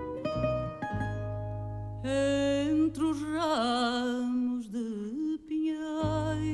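Fado sung by a woman with a Portuguese guitar and a classical guitar accompanying. The guitars play alone for about two seconds, then the voice comes in on long held notes with a wide vibrato.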